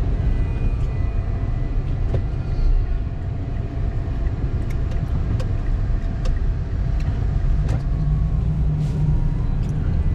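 Steady low rumble of a moving vehicle, with a few faint clicks scattered through it.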